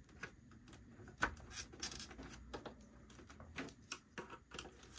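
Scattered light clicks and taps from hands and a screwdriver working on the plastic case of an APC Back-UPS 1400 uninterruptible power supply. The sharpest click comes about a second in.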